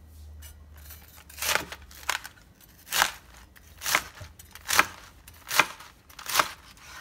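Knife slicing through Napa cabbage leaves on a cutting board: seven crisp crunching cuts, about one a second.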